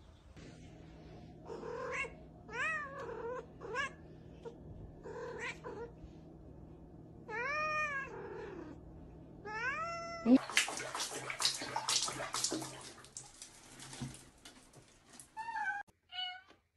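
Domestic cat meowing, about seven short calls that rise and fall in pitch, then a loud harsh rasping noise for two or three seconds, and two short falling calls near the end.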